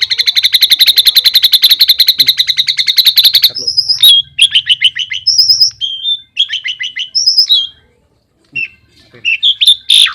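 A tame starling (jalak) calling: a fast rattling chatter of many rapid chirps for the first three seconds or so, then a run of separate whistled notes and short varied call phrases, broken by a brief pause before more calls near the end.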